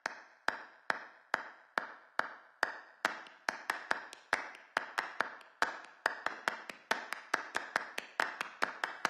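Sharp percussive clicks in a strict, steady beat, about two a second, doubling to about four a second after about three seconds: a clicking percussion intro to a music track.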